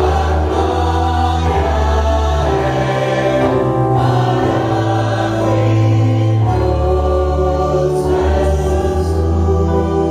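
A congregation singing a worship song together, many voices over sustained low instrumental notes that change every few seconds.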